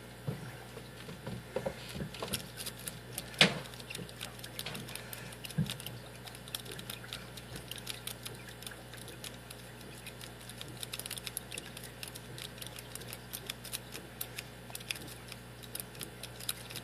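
Worm rake scraping and clicking over the pin tumblers of a Master Lock No. 5 padlock held under light tension, a steady run of small metallic clicks, with one sharper click about three and a half seconds in.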